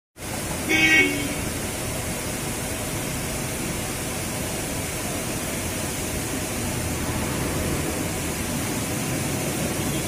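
Steady rushing noise of a large waterfall, with a short vehicle horn toot about a second in.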